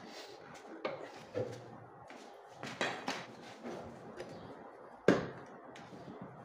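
Plastic air filter box of a Honda CD70 motorcycle being worked loose and pulled from the frame by hand: scattered knocks, clicks and scrapes, with one sharp knock about five seconds in.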